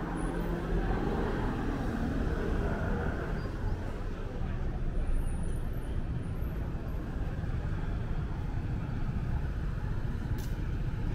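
Road traffic noise: a steady rumble of passing cars and buses.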